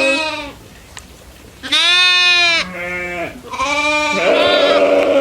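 Goats bleating: a run of loud, wavering calls, each about a second long, one ending just after the start, then two back to back around two to three seconds in, and a longer one from about three and a half seconds on.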